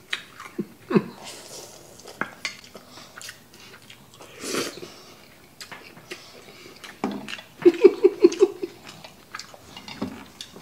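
Wooden chopsticks clicking and scraping against a stainless steel bowl while spicy noodles are slurped and chewed. A brief run of voice-like sounds comes about eight seconds in.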